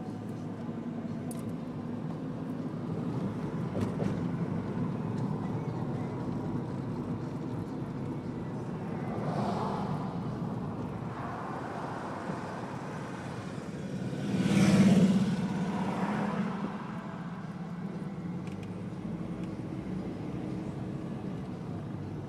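Steady road and tyre noise of a moving car, heard from inside the cabin, with a brief louder swell about fifteen seconds in.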